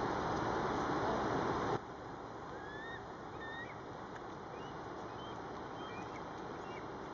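Steady rushing of a river, loud at first and then abruptly quieter a little under two seconds in. Over the quieter part comes a scatter of short, high, squeaky calls.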